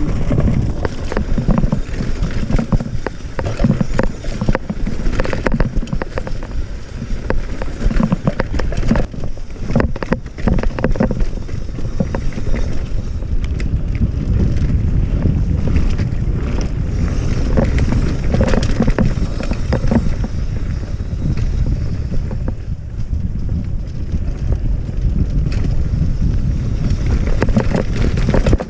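Cross-country mountain bike descending a rough dirt and gravel trail at speed: constant wind rush on the action camera's microphone, with the tyres crunching over stones and the bike clattering over bumps throughout.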